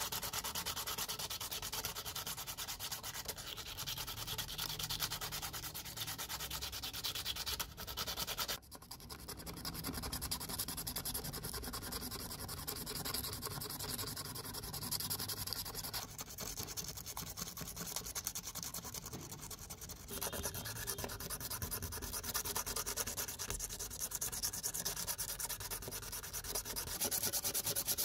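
Sandpaper rubbed by hand in quick back-and-forth strokes over a small knife's handle and steel blade, wet-sanding with black wet/dry abrasive paper. There is a brief break about eight seconds in.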